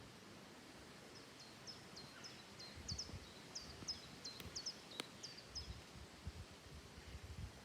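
Faint song of a small bird: a run of short, high chirps repeated about two to three times a second for several seconds, with low irregular rumbling underneath.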